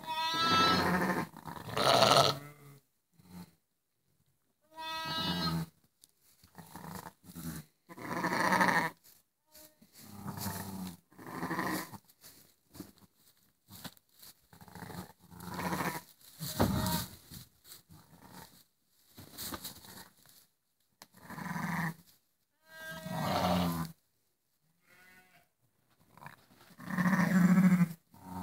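Sheep bleating over and over, about a dozen separate calls a second or two apart, some of them loud and long.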